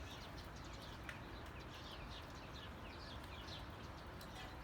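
Faint bird chirps over a steady background hiss: short, quick downward-sliding chirps, coming several a second in the latter half.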